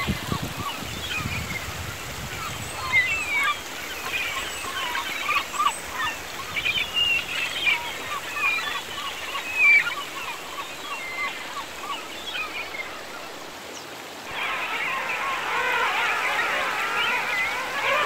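Birds calling again and again over the steady rush of a shallow river. About two-thirds of the way through, the gurgling and splashing of the water turns louder and closer, and the calls fade under it.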